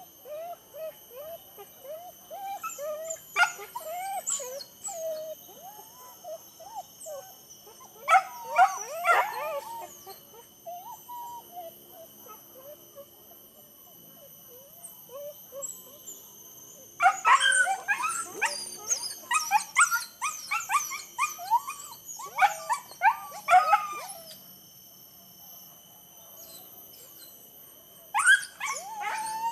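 Hunting dogs yelping and barking in repeated bursts of quick, sharp calls, the longest burst running from a little past halfway for about seven seconds.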